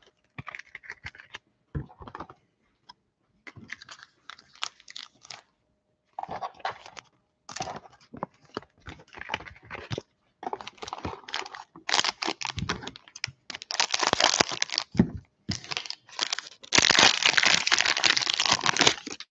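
Cellophane wrapper of a cello pack of football trading cards crinkling and tearing as it is handled and opened. It comes in irregular bursts that grow louder and denser, ending in a long continuous rip and crinkle.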